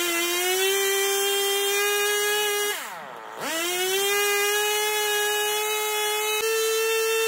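Echo CS3000 chainsaw's two-stroke engine running at high revs, driving a drill attachment as the bit bores into steel plate. Its revs dip sharply about three seconds in and climb back, then rise a little near the end.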